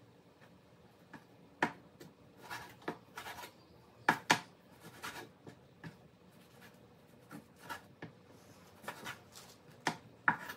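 Kitchen knife trimming fat from pieces of beef shank: about a dozen light, separate cuts and scrapes with quiet between.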